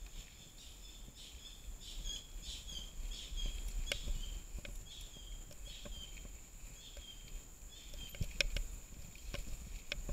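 Mountain bike riding over a forest dirt trail: a low rumble with a few sharp knocks as the bike goes over the ground. Over it, a bird's short high chirps repeat every fraction of a second, with a steady thin high whine behind them.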